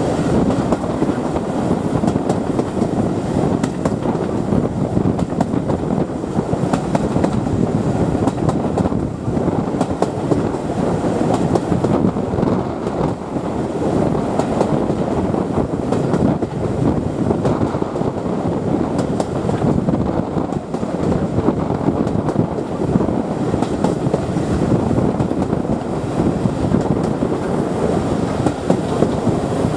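Steam-hauled passenger coach running along the line: a steady rumble of wheels on rail, with wind, heard from an open carriage window.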